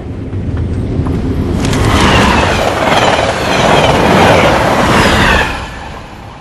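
A train passing close by: a loud rushing rumble of the carriages that builds over the first couple of seconds, holds, then falls away quickly about five and a half seconds in.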